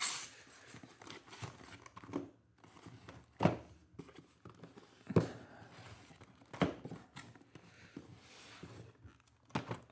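Shrink-wrapped Panini Mosaic basketball hobby boxes being lifted out of a cardboard case and stacked: plastic wrap crinkling and cardboard rustling, with several soft knocks as boxes bump the case and each other.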